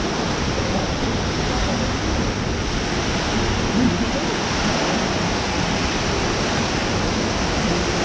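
Indoor atrium waterfall: a tall curtain of water falling into a fountain pool with jets, a steady rushing hiss.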